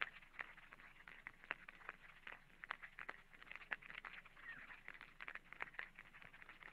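Faint, irregular clicking and crackling, several clicks a second.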